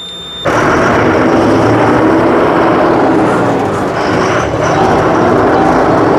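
Truck engine and road noise heard inside the cab while driving: a loud, steady drone with a faint wavering engine note. It starts abruptly about half a second in, cutting off a high steady beep.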